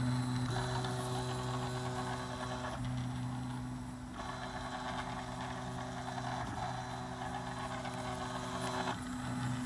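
RepRap Prusa i3 3D printer running a print, its stepper motors giving a steady whine that changes pitch every few seconds as the print head's moves change.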